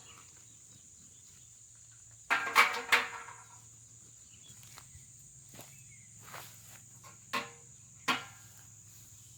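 Charcoal being tipped into a steel furnace built from old helium tanks. A burst of clattering, ringing knocks comes about two seconds in, and two lighter single knocks follow near the end.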